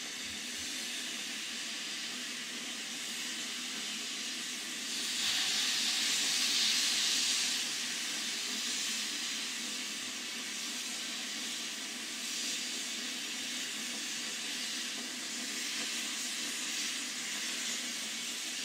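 Standing steam tank locomotive, Met No. 1, blowing off steam: a steady hiss that swells louder for a few seconds about five seconds in.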